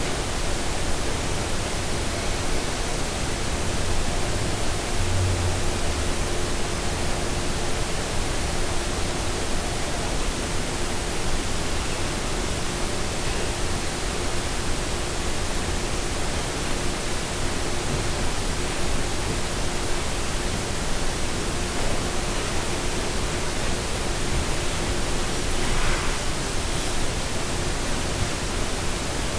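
Steady static-like hiss filling the room, with a faint steady tone under it. This is the bedroom noise the uploader hears as a loud buzzing.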